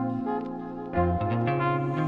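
Background music of held, sustained notes; the chord changes about halfway through.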